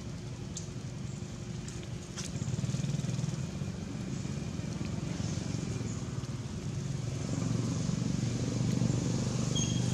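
A vehicle engine running steadily, a low hum that grows louder a couple of seconds in and again near the end, with a few faint clicks.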